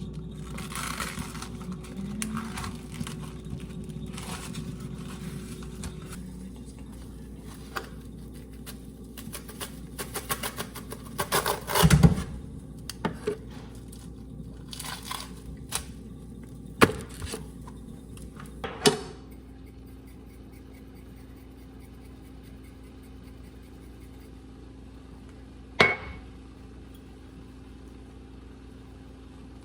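Kitchen handling sounds: scattered knocks and clatters of pots, pans and utensils over a steady low hum. The loudest is a heavy thud about twelve seconds in.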